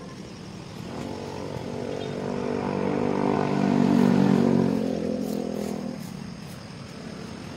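A motor engine passing by: a steady hum that swells over a few seconds, loudest about four seconds in, then fades away.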